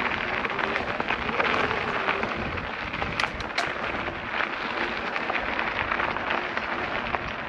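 Electric mountain bike riding over a rough gravel track: the tyres crunch and rattle over loose stones, with rumbling wind noise on the microphone and a faint steady whine from the e-bike's drive motor. A few sharper clicks come about three seconds in.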